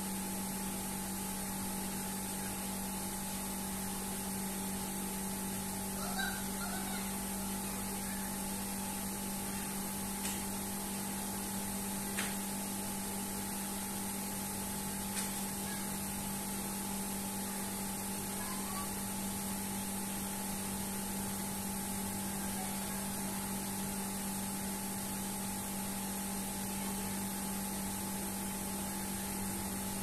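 Steady electrical mains hum over a hiss, with a few faint short chirps about six seconds in and again later, and three light clicks.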